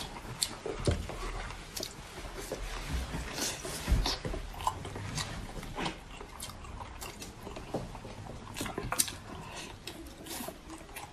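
Close-up eating sounds: wet chewing, lip smacking and squelching as boiled seafood is pulled apart by hand and eaten, with irregular sharp clicks throughout and a heavier knock about four seconds in.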